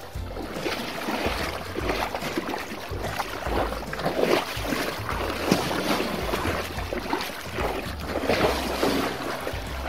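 Wind rumbling on the microphone, with irregular swishing and rustling as someone moves through dry streamside grass and shallow water.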